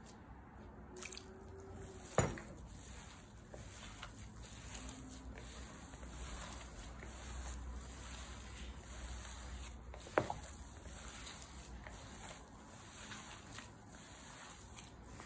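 Gloved hand kneading and squeezing crumbly ma'moul dough in a bowl: soft, irregular squishing and rubbing. There are two sharp knocks, one about two seconds in and one about ten seconds in.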